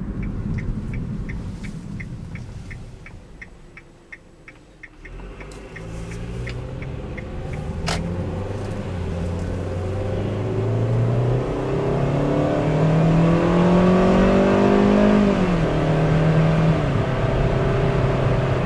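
2013 Kia Soul's 2.0-litre four-cylinder engine heard from inside the cabin in a hard acceleration pass: from about five seconds in the engine note climbs steadily, dropping in pitch at an automatic upshift about fifteen seconds in, then running on at the lower pitch. Before it, a steady ticking at about three a second, and a single sharp click about eight seconds in.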